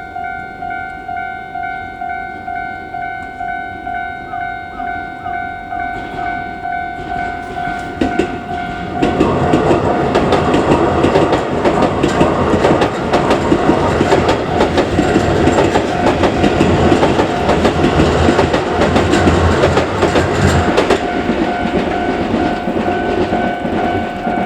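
Level crossing's electronic warning bell ringing in a steady two-tone pulse about twice a second. About eight seconds in, a Keikyu Line train passes through the crossing, its wheels clattering over the rail joints for about twelve seconds and drowning out the bell, which is heard again near the end.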